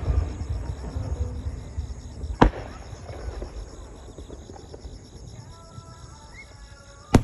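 Aerial firework shells bursting: a sharp boom about two and a half seconds in and another at the very end, with a low rumble from an earlier burst fading away over the first few seconds.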